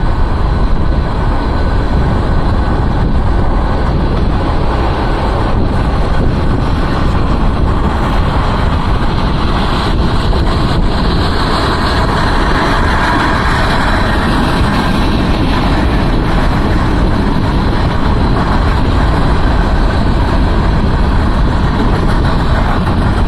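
Freight train cars rolling past at speed: a steady, loud rumble of steel wheels on rail. About halfway through the noise grows louder and higher for a few seconds.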